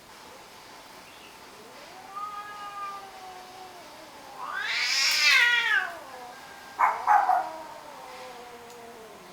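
Male cats in a standoff, caterwauling: long, drawn-out threat yowls, the loudest rising and then falling in pitch about halfway through. A short, harsh outburst comes about seven seconds in, and another long yowl falls away near the end. The younger cat will not fight and only yowls and growls back at the neighbour's tomcat.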